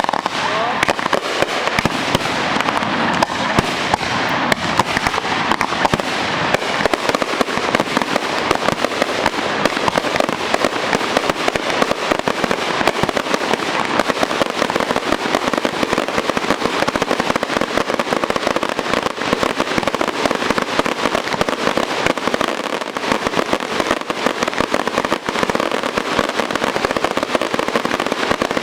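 Fireworks crackling without a break: a dense, rapid run of pops and crackles.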